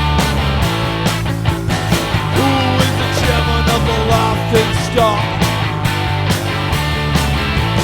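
Grunge-style rock music with distorted guitar, steady bass and a regular drum beat, in an instrumental stretch between sung lines.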